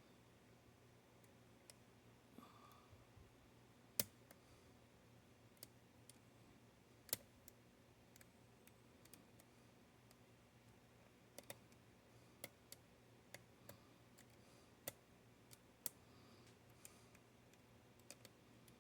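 Faint, irregular clicks of a hook pick and tension tool working the pins of a Paclock 90A-Pro padlock that is not yet open. The sharpest clicks come about four and seven seconds in.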